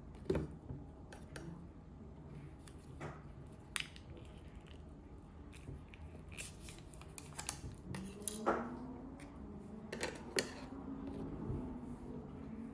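Scattered light clicks and taps of small objects being handled, irregular and a few seconds apart, over a faint low hum.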